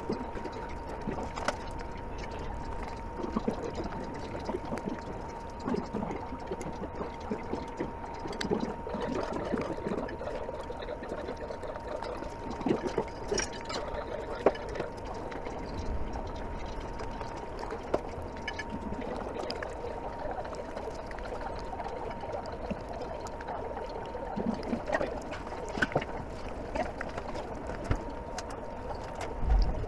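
Restaurant room tone with a steady tone near 1 kHz running throughout, and scattered light clicks of chopsticks against china plates while eating.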